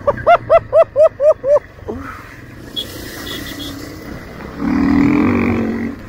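A man laughing loudly in a quick run of about seven 'ha's. About four and a half seconds in, a louder rush of noise lasts over a second.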